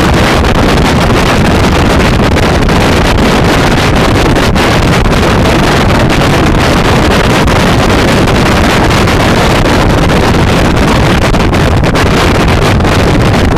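Loud, steady wind noise buffeting the microphone while riding a Kymco Xciting 400i maxi-scooter at road speed, with no engine note standing out through it.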